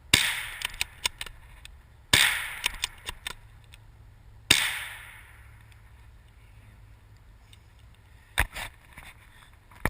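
5.56 bolt-action rifle with a poor silencer fired three times: just after the start, about two seconds in and about four and a half seconds in. Each shot is a sharp report with a trailing decay. Fainter clicks fall between the shots, and a few more come near the end.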